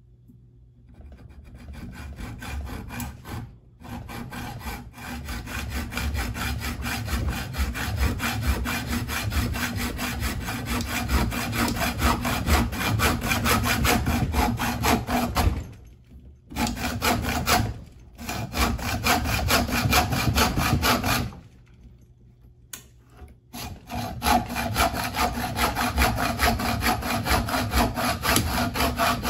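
Hand hacksaw cutting through a metal bar in steady back-and-forth strokes, stopping briefly several times, the longest pause about two-thirds of the way through.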